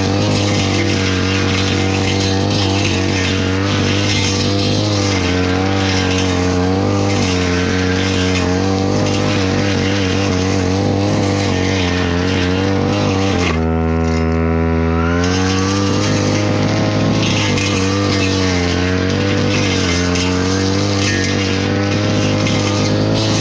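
Petrol brush cutter engine running at high revs, its pitch wavering as it cuts through undergrowth. About two-thirds of the way through it steadies for a second or two with the cutting noise gone, then rises again.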